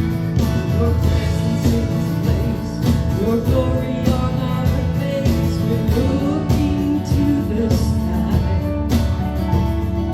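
Worship band music with a steady beat and guitar; a gliding melody line weaves over sustained chords between the sung lines.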